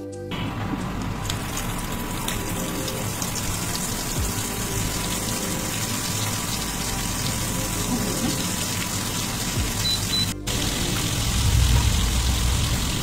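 Chana dal and soya chunk kababs shallow-frying in hot oil in a nonstick pan, a steady sizzle.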